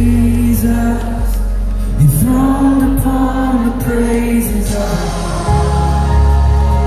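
Live worship music played loud over a PA: a band with long held sung notes over a heavy bass, which grows heavier about five and a half seconds in.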